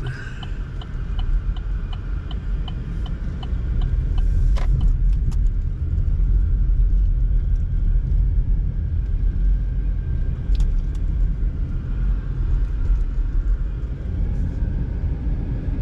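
Inside a moving car: steady low road and engine rumble, getting louder about four seconds in. For the first few seconds a turn signal ticks about twice a second, with one sharper click near the end of the ticking.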